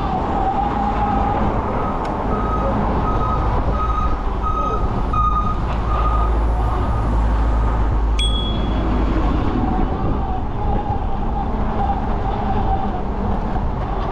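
Steady low rumble of wind and traffic while riding an electric bike, with a run of short, evenly spaced electronic beeps, about one every 0.7 s, from about two to six seconds in.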